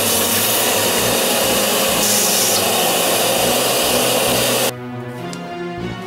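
Vacuum cleaner running as its nozzle works over a bare steel cab floor, cutting off suddenly about four and a half seconds in, with background music under it.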